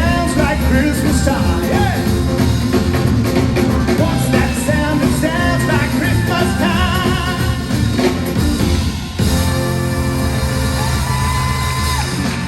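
Live rock and roll band with singing playing the end of a song, then settling into a long held final chord for the last few seconds.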